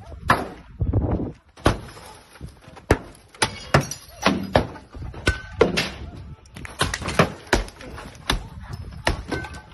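Cars being struck with bats and bars: about a dozen loud, irregular bangs and smashes, with shouting voices between them.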